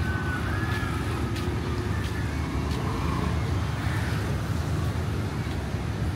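City road traffic: a steady low rumble of cars and motorbikes passing, with a few faint high chirps in the first second or so.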